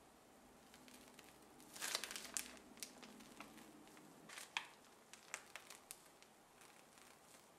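Faint crinkling and rustling of a piping bag squeezed by hand to pipe whipped cream, in scattered short bursts.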